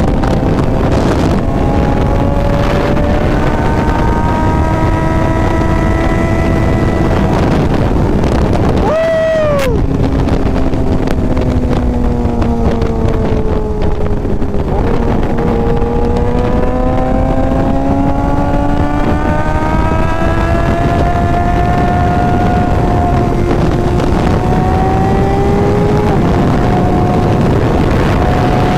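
Sport motorcycle's inline-four engine heard while riding, its pitch rising and falling as the rider accelerates and slows through the bends, with a quick rev and drop about nine seconds in, over wind noise.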